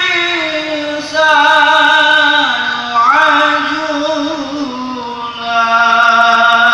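A man's voice chanting unaccompanied into a microphone: long held, ornamented notes that step and slide in pitch, with new phrases starting about a second in, three seconds in and again near the end.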